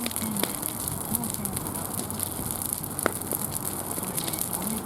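Wood fire crackling: a steady hiss full of small snaps, with a couple of louder pops.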